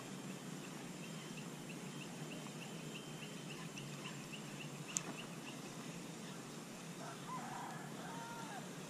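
Birds calling over a steady outdoor background: a run of short high chirps, about three a second, for the first five seconds, then a few lower arched notes near the end. A single sharp click about five seconds in.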